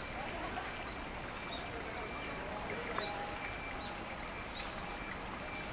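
Outdoor ambience of a busy garden: indistinct chatter of visitors and occasional bird chirps over a steady hiss, with a single light click about three seconds in.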